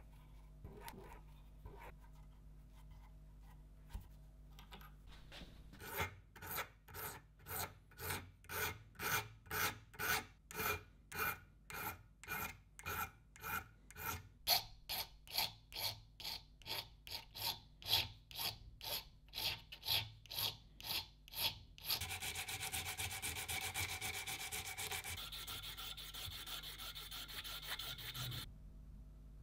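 Back-and-forth abrasive strokes on metal, worked by hand: quiet at first, then an even rhythm of about two strokes a second from about six seconds in. Past the middle the strokes merge into a continuous scratchy rubbing with a ringing edge, which cuts off shortly before the end.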